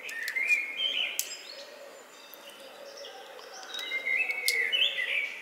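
A bird singing in the background: short warbled phrases that step upward in pitch, one right at the start and another about four seconds in.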